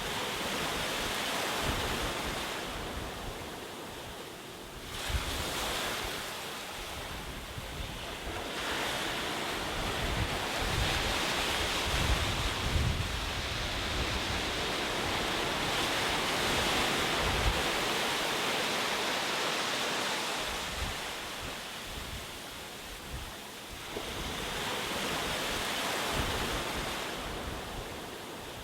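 Ocean waves breaking on a shore, surging and receding in repeated swells every few seconds, with wind rumbling on the microphone.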